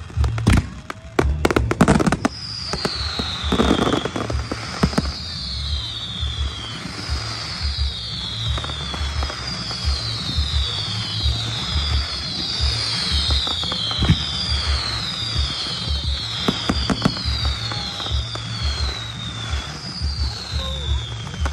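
Fireworks display: sharp firework bangs in the first few seconds, then crackling and fizzing from ground fountains and comets. Music plays along, with a steady low beat and a high falling tone repeating about every second and a half.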